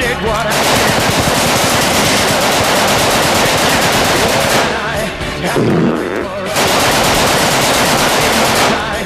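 Automatic gunfire in two long, rapid bursts, the first about four seconds and the second about two, with a short break between them.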